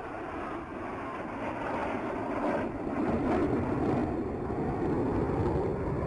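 Jet aircraft of the Black Eagles display team (KAI T-50B) flying past: a broad rushing jet noise that grows louder about halfway through.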